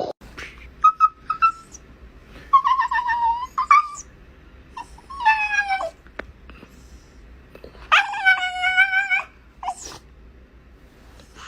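A dog whining in a series of drawn-out high calls, four or five in all, several sliding down in pitch at the end.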